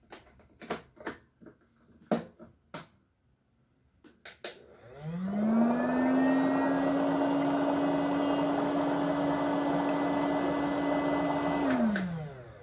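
A few clicks and knocks. Then, about five seconds in, the HoMedics footbath's bubble-massage motor starts: its hum rises in pitch as it spins up, then runs steadily under the hiss of air bubbling through the water. It winds down, falling in pitch, as it is switched off near the end.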